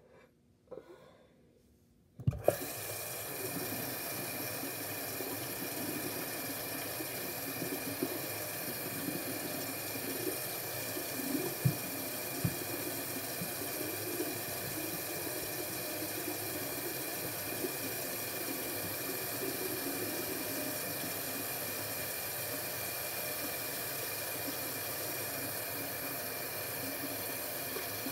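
Bathroom tap turned on with a knock about two seconds in, then water running steadily into the sink, with a few light knocks of handling.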